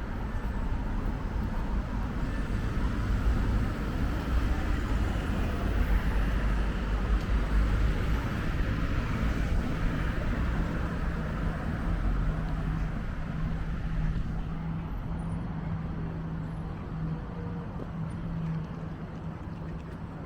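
Wind buffeting the microphone in gusts, with a heavy low rumble over a background of street traffic; a steady low hum comes in about two-thirds of the way through.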